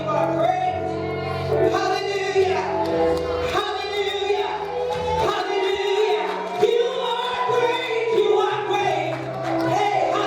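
Gospel worship music: several voices singing together over a band, with long held low bass notes underneath that change pitch a few times.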